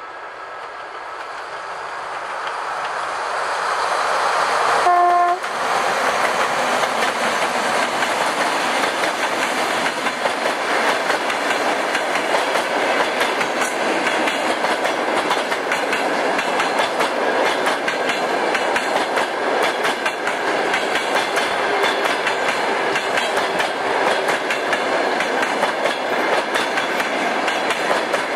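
A TEP70 diesel locomotive hauling a passenger train approaches and grows louder. It gives a short horn blast about five seconds in as it draws level. The carriages then roll past with a steady clickety-clack of wheels over the rail joints.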